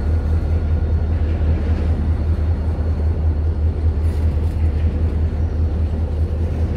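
Flatcars of a rail train loaded with steel rail rolling past on the track, a steady low rumble.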